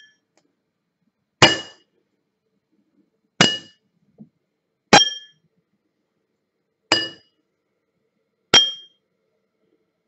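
Two water-filled drinking glasses tapped in turn, five sharp clinks about one and a half to two seconds apart, each ringing briefly before dying away. The glass of fresh tap water, still holding its dissolved gases, gives a relatively dull sound, and the glass of previously boiled water rings more clearly.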